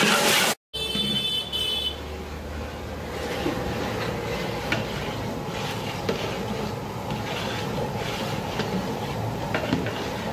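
A big ladle stirring thick biryani masala in a large aluminium pot, giving faint scrapes and taps of metal on the pot over a steady rushing background noise.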